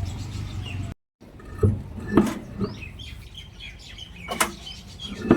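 Several irregular sharp knocks and taps, with birds chirping in the background. A steady low background sound cuts off abruptly about a second in, just before the knocks begin.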